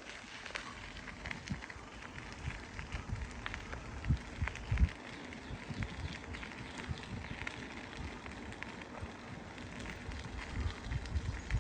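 Bicycle tyres rolling along a rail trail, a steady crackle of grit under the wheels with scattered low thumps.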